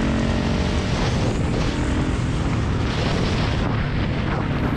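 Motorcycle riding fast on a gravel road, heard from the rider's helmet microphone: steady engine drone buried under heavy wind rumble buffeting the microphone.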